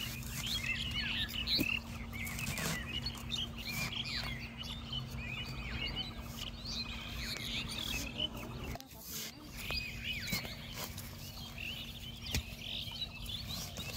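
Small birds chirping steadily, with scattered knocks and scrapes of a short-handled digging tool cutting into damp soil.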